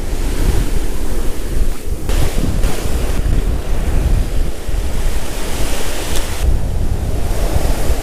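Ocean surf washing up the beach, swelling twice, with heavy wind buffeting the microphone.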